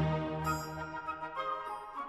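Orchestral classical music, with a flute line entering about a quarter of the way in over sustained lower notes.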